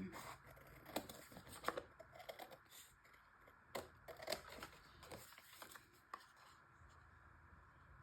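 Faint snips of scissors cutting through card, with paper being handled in between: about a dozen short, separate snips over the first six seconds, then only quieter rustling.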